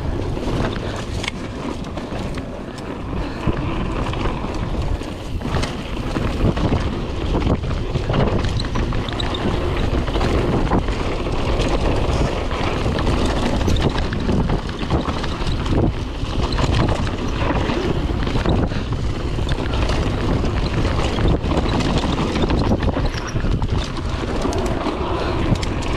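Wind buffeting an action camera's microphone as a mountain bike is ridden fast down a trail, over a steady rumble of tyres rolling on the ground and frequent knocks and rattles from the bike over bumps.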